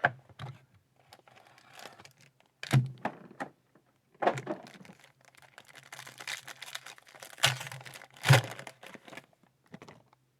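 A trading card pack being torn open and handled: crinkling and tearing of the wrapper with rustling of cards, and several sharp knocks, the loudest about three-quarters of the way through.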